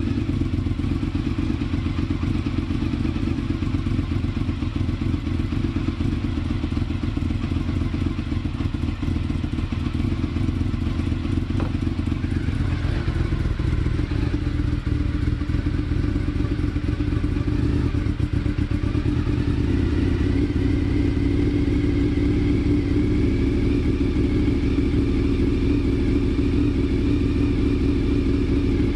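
Honda VFR 750's V4 engine idling steadily, run to warm the oil before an oil change. Its tone shifts slightly about thirteen seconds in.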